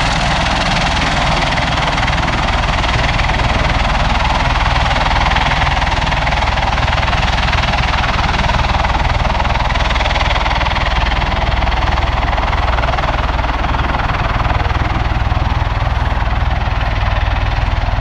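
Bell Boeing MV-22 Osprey tiltrotor on the ground with its nacelles tilted up, its two Rolls-Royce T406 turboshaft engines and three-bladed proprotors running steadily. Loud, even turbine noise with a fast low beat from the rotor blades underneath.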